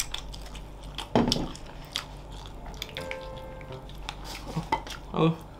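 Eating sounds from grilled ribs being picked apart by hand: scattered small clicks and crackles as meat is pulled from the bones, paper wrappers rustling, and chewing.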